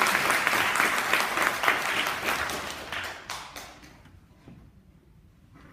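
Audience applauding, the clapping thinning out and dying away over about four seconds.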